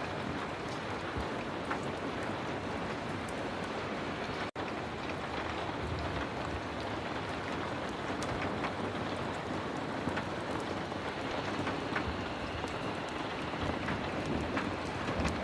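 Heavy rain falling steadily, with scattered sharp ticks through it. The sound cuts out for an instant about four and a half seconds in.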